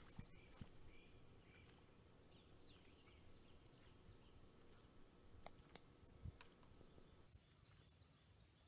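Faint, steady high-pitched insect chorus trilling in a wet prairie, with a few faint clicks about five and six seconds in.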